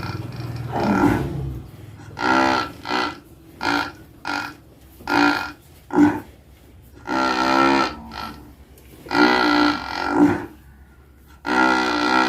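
A large cow snoring in its sleep: a string of about ten short, pitched snores at uneven gaps, each under a second long.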